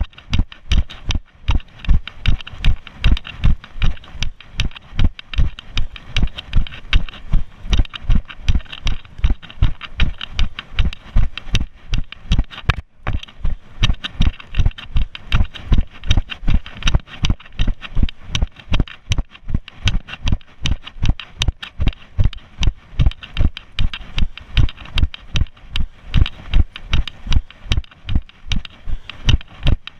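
Running footsteps on grass: heavy, regular thuds about three a second as each stride jolts the body-worn camera, with a brief break about halfway through.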